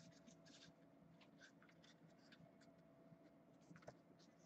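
Very faint rustling and scraping of football trading cards being slid one by one off a stack held in the hand, a scatter of soft short scrapes.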